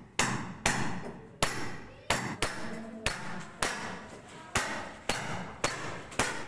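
Hammer striking a steel chisel, cutting a groove into a brick wall for a water pipe: a steady run of about a dozen sharp strikes, roughly two a second, each ringing briefly.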